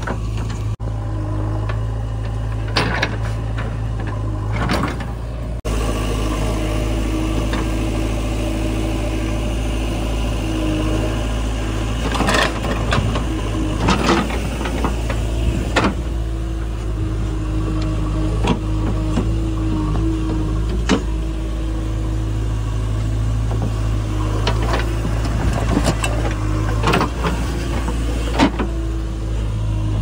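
Diesel engine of a JCB 3DX backhoe loader running steadily while it loads mud, with scattered knocks and clanks throughout.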